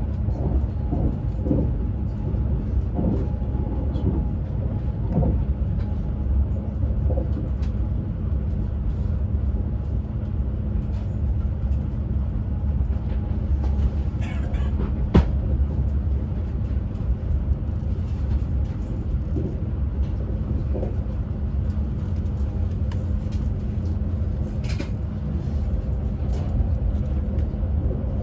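Steady low rumble of an ICE high-speed train heard from inside the passenger car, with a constant hum under it and a single sharp click about fifteen seconds in.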